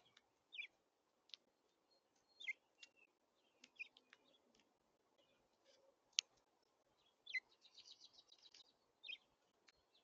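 Small songbirds chirping faintly. They give short downward-sliding chirps every second or two and a fast twittering run past the middle, with a few sharp clicks in between.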